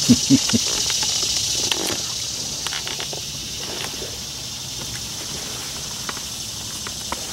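Steady high-pitched chorus of insects, a constant shrill hiss that eases slightly after a couple of seconds, with a few brief knocks in the first half second.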